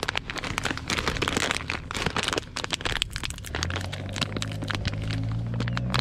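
Plastic rustling and crinkling with many small cracks and clicks as something is worked open by hand. About halfway through, a low steady engine hum comes in underneath.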